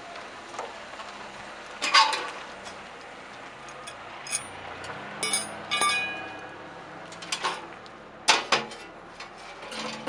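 Steel leg bars and the sheet-steel box of a home-made folding barbecue grill (mangal) clanking and clinking as they are handled and set down: a series of sharp metal knocks, loudest about two seconds in and again past eight seconds, with a brief metallic ringing around the middle.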